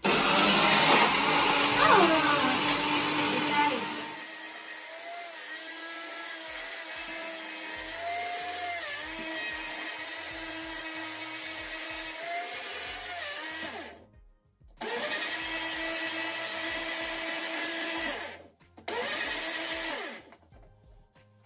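Concept personal bottle blender running as it blends a coffee drink. It is loud and harsh for about the first four seconds, then settles to a steadier, lower hum. It stops, then runs in two more short pulses before stopping near the end.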